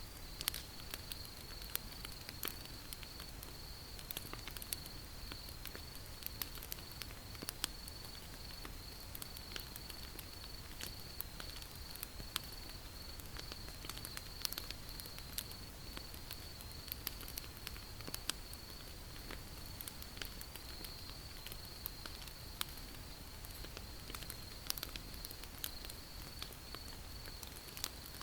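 Wood campfire crackling: irregular sharp pops and snaps over a low steady hiss, with a steady high-pitched trill in the background.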